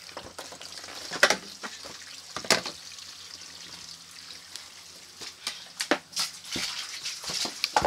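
Knocks, bumps and handling noise from someone climbing through a wooden playhouse with the camera in hand, over a steady hiss.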